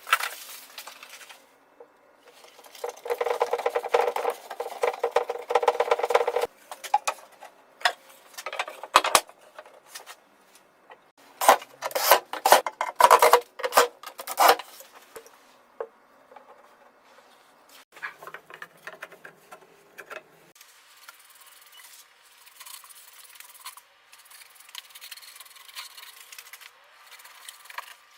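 Abrasive rubbing on wood, like sanding or rasping, in irregular passes of a second or two, the loudest about three seconds in and again about twelve seconds in.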